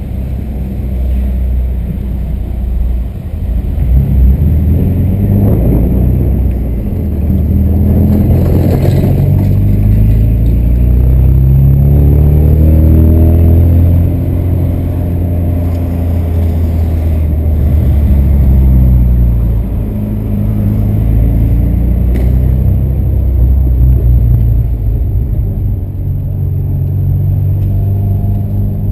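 VW Santana 2.0's AP 2000 four-cylinder engine and exhaust pulling under throttle, the revs climbing to a peak around halfway, falling away, then rising and falling again. The engine is still warming up, and its exhaust has been freshly repaired of a leak.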